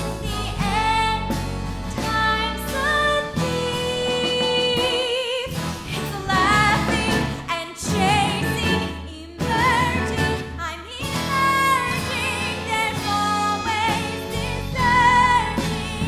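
A woman singing a show tune from a stage musical over instrumental accompaniment, with vibrato on her held notes.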